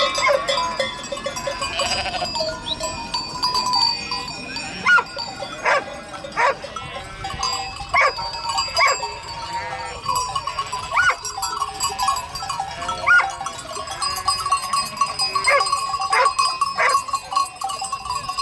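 Large flock of Sardi sheep bleating, many calls overlapping one another without pause.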